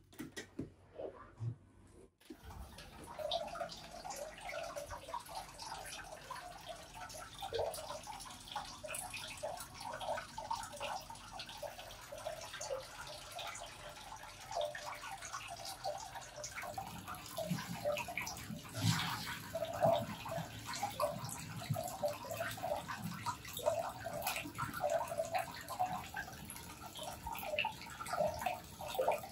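A few brief clicks of a door latch and door in the first two seconds, then hot-spring water running and splashing steadily into an open-air bath, growing heavier and fuller just past the middle.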